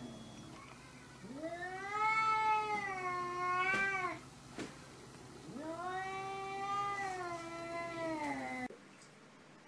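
Domestic cat yowling twice, two long caterwauls that each rise, hold and then sink in pitch: the warning yowl of two cats facing off. A short click falls between the two yowls.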